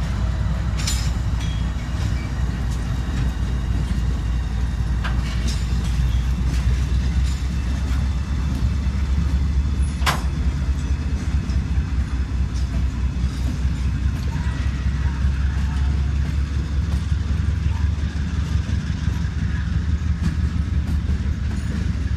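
Diesel locomotives, a BNSF GE ES44C4 and Norfolk Southern units, rolling slowly past as a light-engine consist, their engines running with a steady low rumble. A sharp metallic clank stands out about ten seconds in, with a few fainter clicks around it.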